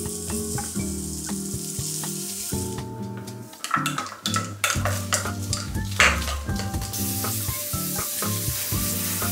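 Gochugaru (Korean chili flakes) hissing as it is poured from a bottle into a plastic cup, then gloved hands tossing julienned radish with the chili flakes in a rapid rustling, with another hiss of pouring near the end. Background music plays throughout.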